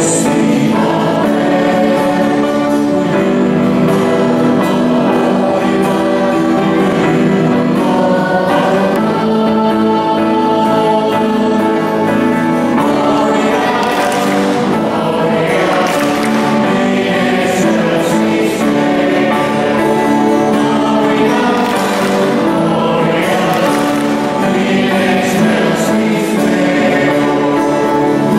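Church choir singing a sung part of the Mass, with sustained instrumental accompaniment running under the voices.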